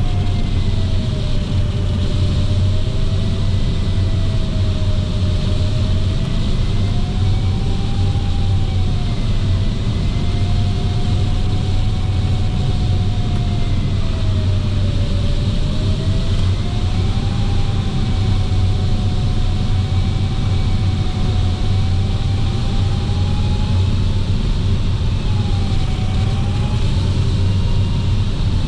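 Steady rush of airflow and a low rumble inside a glider cockpit on tow, with an electronic variometer's continuous tone over it, wavering up and down in pitch and drifting higher near the end as the climb rate changes.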